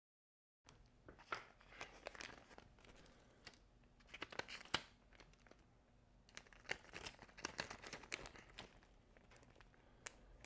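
Clear plastic bag crinkling and crackling in irregular bursts as it is handled and a racquet grommet strip is slid into it, starting about a second in.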